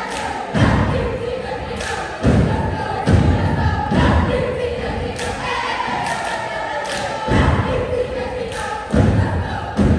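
Heavy thuds at uneven intervals, about eight in the span, echoing in a gym over continuous crowd shouting and chanting.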